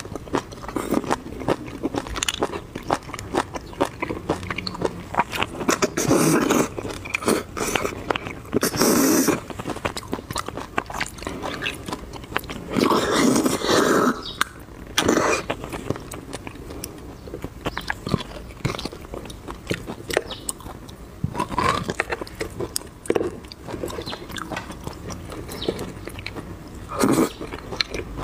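Close-miked eating of spicy beef bone marrow: wet chewing and lip smacking with many small clicks. A longer loud sucking slurp about 13 seconds in comes as marrow is drawn out of a cross-cut bone.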